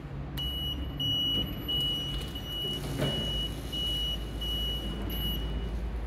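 Lift call-button sounder giving a high-pitched electronic alarm beep, about eight beeps at roughly one and a half a second, which stop near the end. A single knock comes about halfway, over a steady low hum.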